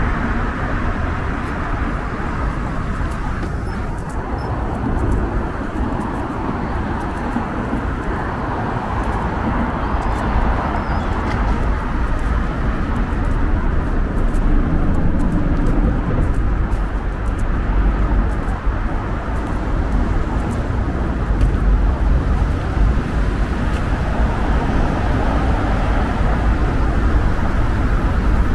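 Steady road traffic noise: cars on the roads around a flyover junction, with a continuous low rumble that grows a little louder in the second half.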